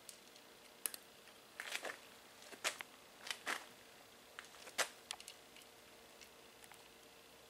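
A cat eating dry kibble from a metal bowl: irregular sharp crunches and clicks, thinning out after about five seconds.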